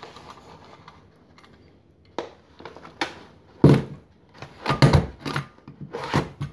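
Handheld stapler clicking shut several times as a rolled card cone is stapled, with paper handling and light knocks against the table between the clicks; the loudest knocks fall a little past the middle.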